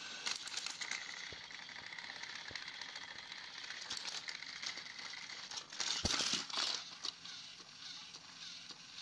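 Battery-powered Thomas toy trains whirring and rattling along a plastic track. About six seconds in comes a loud thump and clatter as the train tumbles off the raised track, then lighter rattling.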